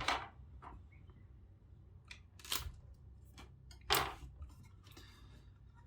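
A few short, sharp clicks and knocks of hard plastic parts being handled: the vacuum's wall-mount bracket and fittings. The loudest come about two and a half and four seconds in.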